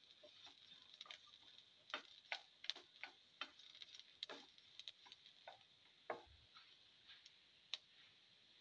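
Faint, irregular clicks and taps of a spatula against a frying pan as shallots, garlic and spices are stirred.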